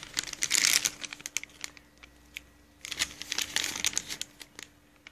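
Clear zip-top plastic bag crinkling as it is handled, in two spells of rustling with a pause of about a second and a half between them.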